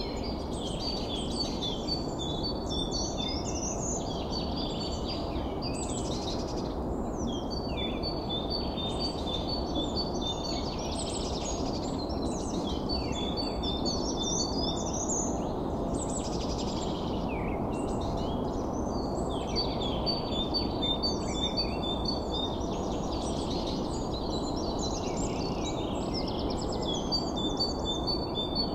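Birds chirping and singing, with a phrase of paired high notes that comes back about every six seconds, over a steady low rushing noise.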